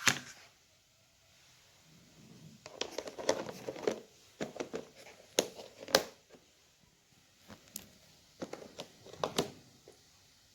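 Crinkling and clicking handling noises in two bursts, after a sharp knock at the start.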